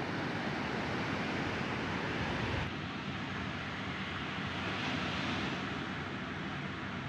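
Small fishing boat's engine running steadily under way, mixed with the wash of waves and wind on the microphone; the noise changes abruptly about two and a half seconds in.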